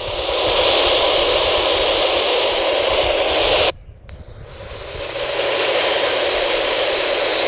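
Static hiss from a weather radio receiver tuned to a weak signal with interference. The hiss cuts out suddenly about halfway through, then swells back in.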